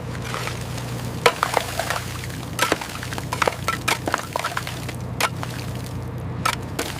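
Ice cracking and crunching in a string of irregular sharp cracks, over a steady low hum.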